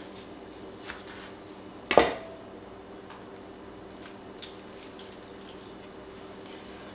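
A kitchen knife knocks once, sharp and loud, on a plastic cutting board about two seconds in, with a few faint small clicks of a peach being handled.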